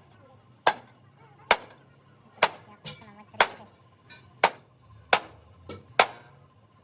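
Hammer blows on truck body metal, about one a second: seven hard strikes with a couple of lighter taps between.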